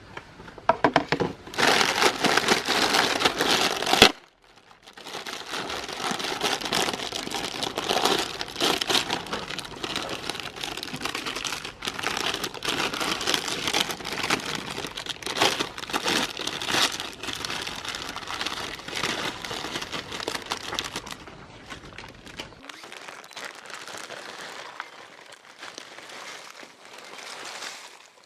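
Meat grinder crushing items, a dense run of crackling and crunching that breaks off for a moment about four seconds in and grows quieter near the end.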